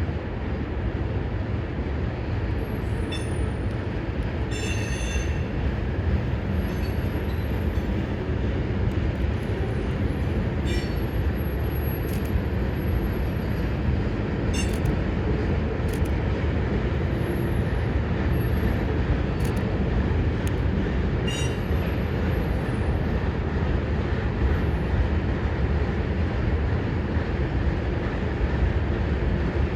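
CSX freight train rolling past: a steady, loud rumble of wheels on rail, with short high-pitched wheel squeals and clicks now and then.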